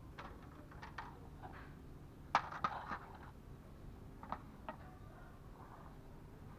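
Scattered light clicks and knocks of handling, with a cluster of sharper clinks about two and a half seconds in and two more single ticks a little later.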